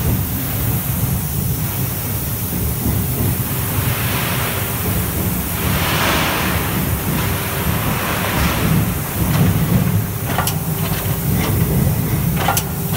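Forge shop with a 1000-ton hot forging press running: a steady low rumble, with swells of hiss midway and several sharp metallic knocks near the end.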